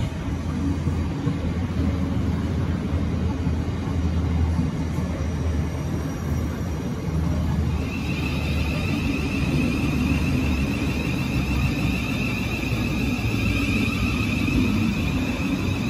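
Thameslink Class 700 electric multiple unit pulling slowly into the platform: a steady low rumble of wheels and running gear, with a steady high whine joining in about halfway through.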